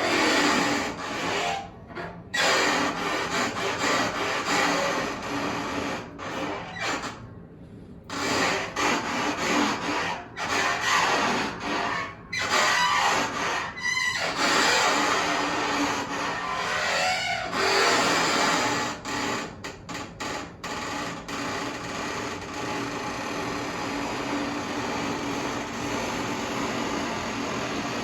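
Dishwasher worked for sound samples: irregular rubbing and scraping noises that stop and start many times, settling into a steady noise for the last several seconds.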